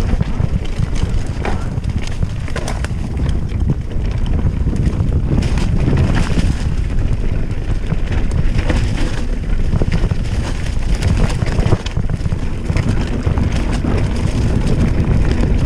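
Mountain bike descending a rough dirt and grass trail: wind buffets the microphone over a steady low rumble, with frequent knocks and rattles as the bike goes over bumps.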